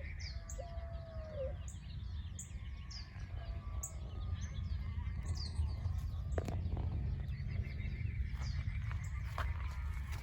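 Birds chirping outdoors, short high falling notes repeated about twice a second, over a steady low rumble, with a few sharp clicks or knocks in the second half.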